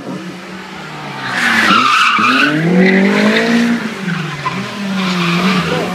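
Rally car braking and sliding through a hairpin, its tyres screeching about a second and a half in, then the engine revving hard as it accelerates out of the corner, the note dropping briefly near four seconds and climbing again.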